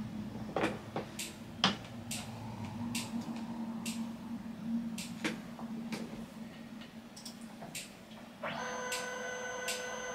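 Irregular clicks and taps from hands working at a computer desk over a low steady hum. About eight and a half seconds in, a steady whine with several fixed pitches starts and holds.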